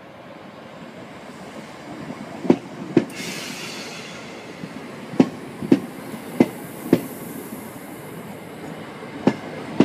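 British Rail Class 321 electric multiple unit running slowly into a terminal platform. Its wheels click over a rail joint in four pairs, the two clicks of each pair about half a second apart, with a brief hiss about three seconds in.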